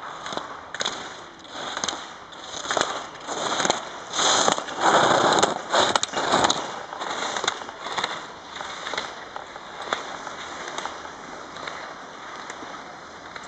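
Slalom skier's edges scraping and hissing on hard-packed snow in quick rhythmic turns, about two a second, loudest about halfway through and fading as the skier moves away. A few sharp clacks of gate poles being knocked aside.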